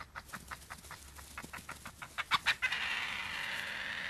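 European badgers at the sett, heard as a run of quick clicking clucks that grow louder about two seconds in, followed by a steady rasping sound lasting over a second near the end.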